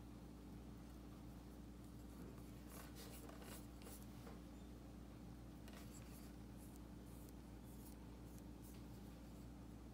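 Near silence: a steady low electrical hum, with faint scattered scratchy rustles about three to four seconds in and again from about six to nine seconds in.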